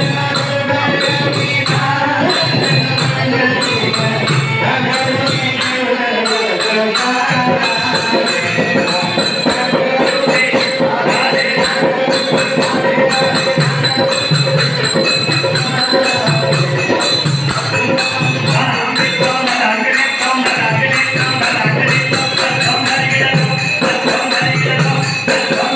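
Devotional music with a steady beat and jingling percussion over a held drone tone, with a wavering melody line drifting through.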